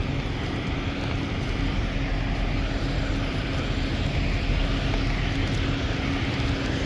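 A vehicle's engine and road noise: a steady low rumble with a constant hum, unchanging throughout.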